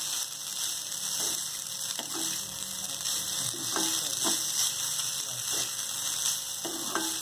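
Vegetable fried rice sizzling in a hot pan, with a spatula scraping and knocking against the pan every second or two as the rice is stirred and mixed.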